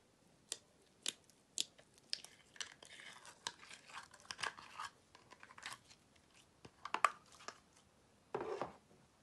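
Pressed glitter eyeshadow being dug out of its small case by fingers. First three sharp clicks about half a second apart, then a stretch of dry crackling and crumbling, more clicks, and a fuller crunch near the end as the chunk breaks free.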